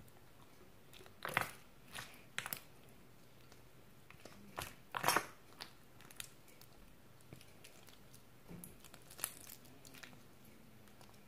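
Pink fluffy slime with googly eyes mixed in being kneaded and stretched by hand, giving short, irregular squishes and pops, the loudest about five seconds in.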